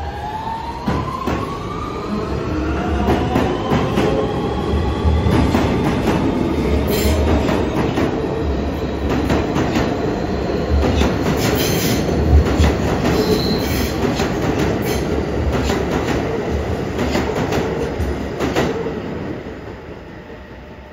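Siemens-powered R160 subway train pulling away. Its traction motors give a rising, musical whine at the start. Then the cars pass close, rumbling loudly with wheels clicking over rail joints, and the sound fades near the end.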